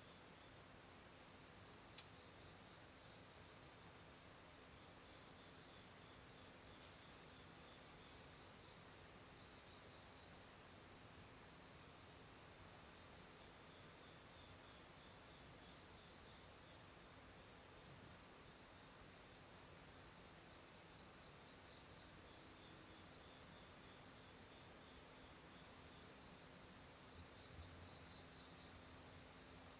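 Faint crickets trilling steadily in a high pitch, with a louder chirp repeating a little under twice a second for a stretch in the first half and again near the end.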